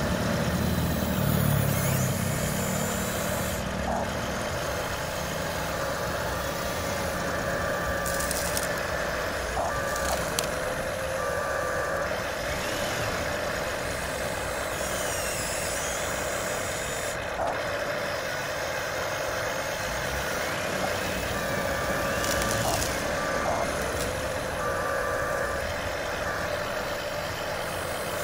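Electric motors and gearboxes of a Huina 1593 RC excavator whining steadily as its arm and bucket work into gravel, with a few short clicks.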